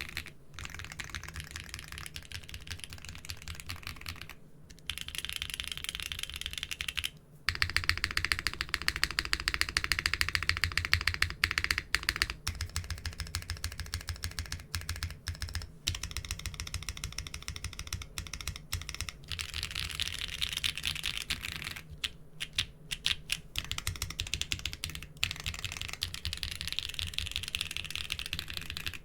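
Typing on a mechanical keyboard fitted with doubleshot keycaps: a fast, continuous run of keystroke clacks. The typing stops briefly about seven seconds in, then comes back louder.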